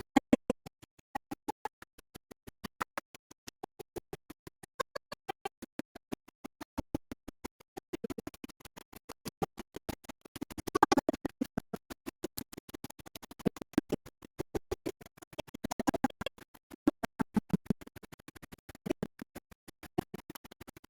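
Electronic background music chopped into a fast, even stutter of about eight pulses a second, with a scratching, glitchy quality.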